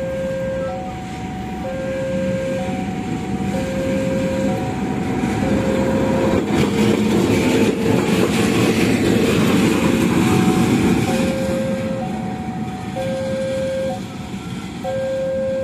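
CC 206 diesel-electric shunting locomotive running past, its engine and wheels loudest about halfway through, then fading. Throughout, a level-crossing alarm sounds two alternating tones, low then high, about one change a second, partly masked while the locomotive passes.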